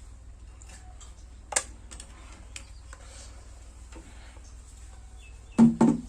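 Light clicks and handling noises, one sharper click about a second and a half in, then a louder knock near the end, over a steady low hum.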